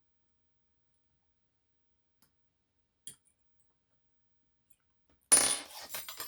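A metal lock pick drops and clatters onto a hard surface about five seconds in, a sudden jingling impact with a high metallic ring that dies away within a second. A faint click about three seconds in comes before it.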